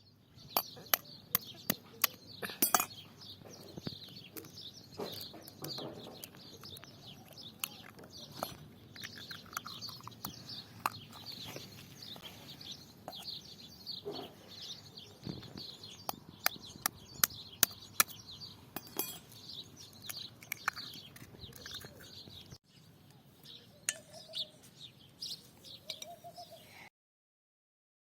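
Birds singing throughout, with many sharp clicks and clinks of kitchen utensils as eggs are added to flour and mixed. The sound cuts off abruptly near the end.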